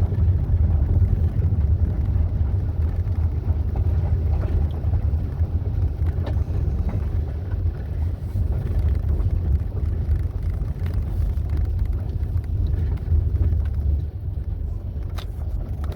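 A vehicle driving, heard from inside: a steady low rumble of engine and road noise.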